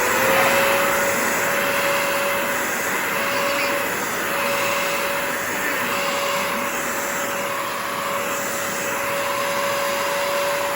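Shark CarpetXpert upright carpet cleaner running: its suction motor comes up to speed with a rising whine just as it starts, then holds a steady high whine over a loud rush of suction.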